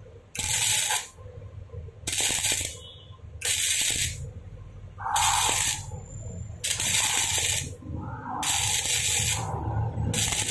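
Arc of a Daiden MIGI 130 wire-feed (MIG/flux-core) welder crackling and hissing in about seven short bursts, each under a second long, as the torch trigger is pulled and released to stitch-weld steel tube.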